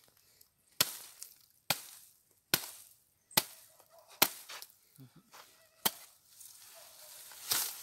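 Machete chopping into the fibrous top of a felled coconut palm trunk to cut out the heart of palm. Six sharp chops come a little under a second apart, then a longer, rougher cut near the end.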